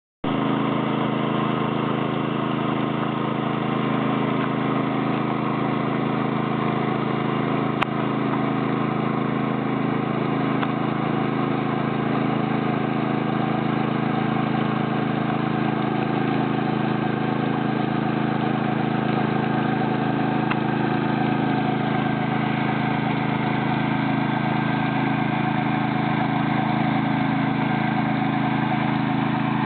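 Small engine of a motorised weeding machine running steadily at an even speed, with a single brief click about eight seconds in.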